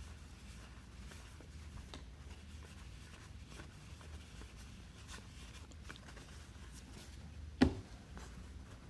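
Quiet handling of trading cards and pack wrappers: faint small rustles and clicks over a low steady hum, with one sharp click a little past three-quarters of the way through.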